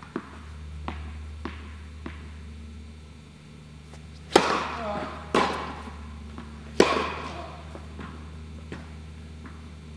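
A tennis ball bounced lightly a few times, then three loud racket strikes about a second apart, each ringing on in the echo of an indoor tennis hall. A steady low hum runs underneath.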